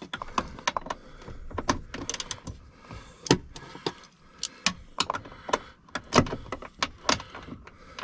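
Socket ratchet wrench worked on the bolts of a car's lower door hinge: scattered sharp metallic clicks and clinks of the ratchet and socket against the hinge, with a few louder knocks.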